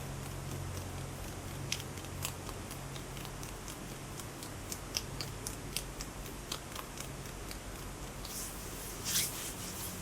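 Close-miked hand sounds: scattered sharp clicks and taps of fingers and nails, then a brief louder rubbing rustle about a second before the end, over a low steady hum.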